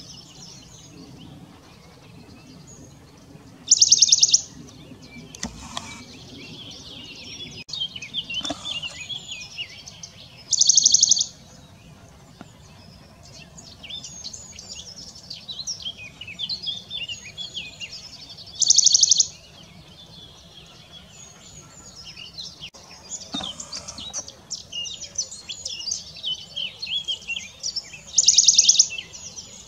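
Western Bonelli's warbler singing: four loud, rapid trills on one high pitch, each about a second long, repeated every seven or eight seconds.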